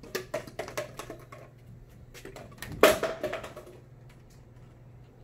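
Thin plastic sheet being handled and fitted into wooden cove moulding: a quick run of small clicks and taps, then a louder crackle of the plastic flexing about three seconds in, over a faint steady hum.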